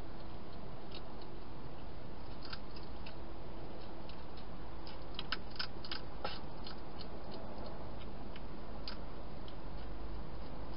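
Wild hedgehog eating dry food: irregular sharp crunches as it chews, coming thickest in a quick run about five to six seconds in, over a steady hiss.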